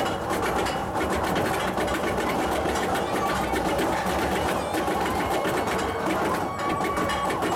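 Roller coaster train being hauled up the chain lift hill: the lift chain and anti-rollback ratchet clattering rapidly and steadily.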